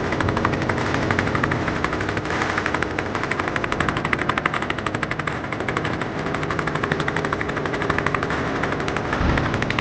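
A fishing boat's engine running with a rapid, steady knocking.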